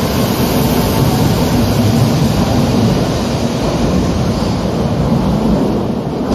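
Madrid Metro train running through an underground station, a loud, steady noise of wheels and motors.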